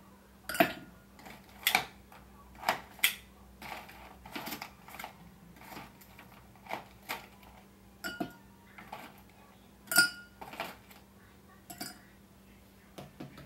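Metal tongs lifting ice cubes from a bowl and dropping them into a drinking glass: irregular sharp clinks and knocks of ice and tongs against the glass and the bowl, the loudest about half a second and ten seconds in.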